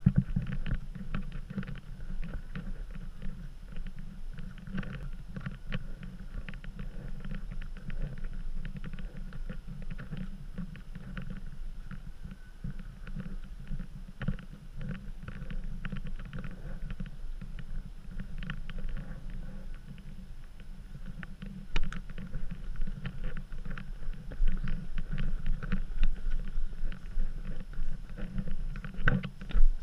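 Rattling and rumbling of an action camera jolting as it moves over stone paving, with wind buffeting the microphone. It gets louder and bumpier about two-thirds of the way through.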